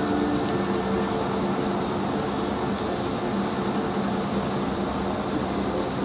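A steady mechanical hum with a constant low drone, unchanging throughout.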